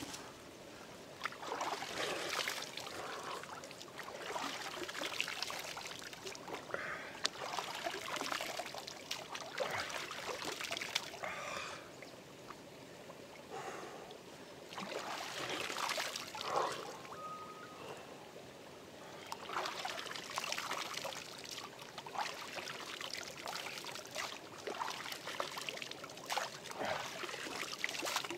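Hands scooping water from a shallow creek and splashing it, again and again in irregular splashes every second or two, with the creek trickling underneath.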